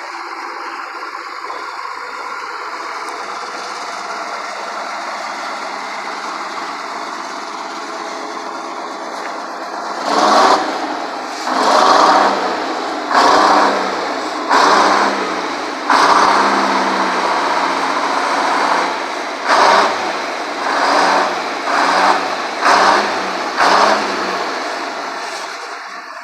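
GM Detroit Diesel supercharged inline-six two-stroke engine of a 1954 LeTourneau-Westinghouse Tournarocker idling steadily, then revved in about ten short bursts roughly a second apart, one held longer in the middle, before settling back to idle.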